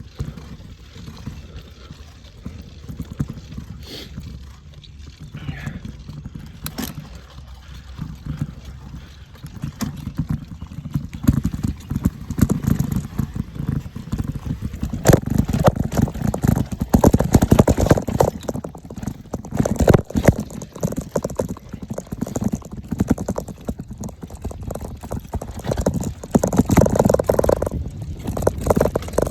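Mountain bike rattling and clattering over a rough dirt trail, with a low rumble that may be wind on the microphone. It grows louder and busier about ten seconds in.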